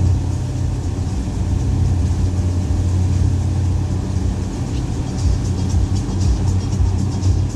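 Boat's outboard engine running steadily at speed, a low steady drone. About five seconds in, a regular high ticking starts over it.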